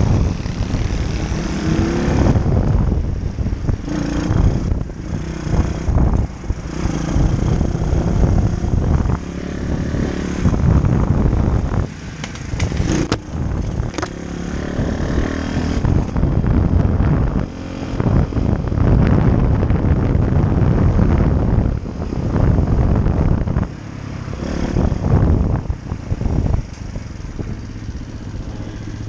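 Small single-cylinder four-stroke pit bike engine running while riding along, its loudness rising and falling repeatedly as the throttle opens and eases, with wind noise on the helmet-mounted microphone.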